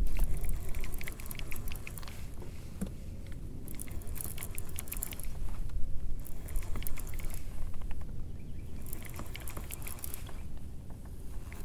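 Fishing reel clicking in irregular bursts of fast ticks as a hooked catfish is fought and reeled in, over a steady low rumble.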